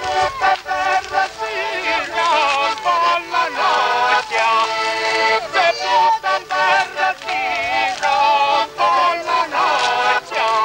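Piano accordion playing a tune, with voices singing along.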